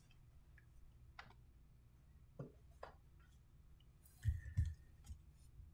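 Faint handling noise from sealed cardboard trading-card boxes being moved on a table mat: a few scattered light clicks, then two soft low thumps about four seconds in.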